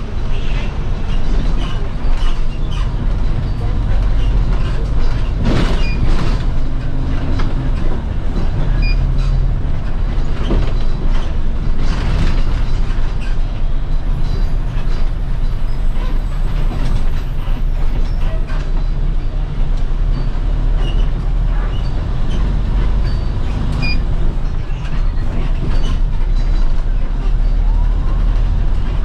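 City bus running: a steady low engine and road rumble with a few sharp knocks and rattles.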